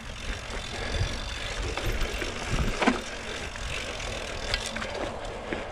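Mountain bike riding along dirt singletrack: steady tyre and bike rattle over the ground with a low rumble, broken by a few sharp knocks from bumps.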